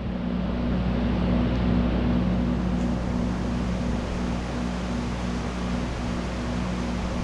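Steady whir and rushing air of electric fans running, over a constant low hum.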